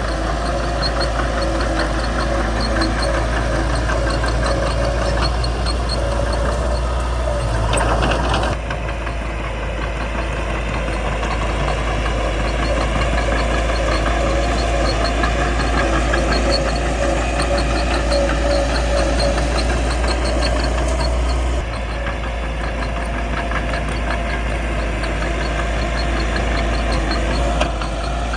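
Caterpillar D3C bulldozer's diesel engine running steadily with a fast, even ticking over it. The sound shifts abruptly twice, about 8 and 22 seconds in.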